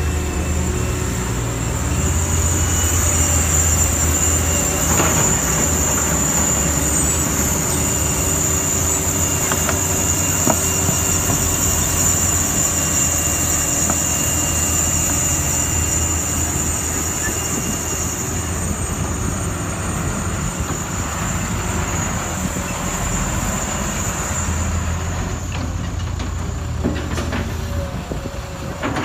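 Diesel engine of a Caterpillar hydraulic excavator running steadily as it digs and loads dirt into a dump truck, with a steady high whine above the engine that weakens near the end and a few faint knocks.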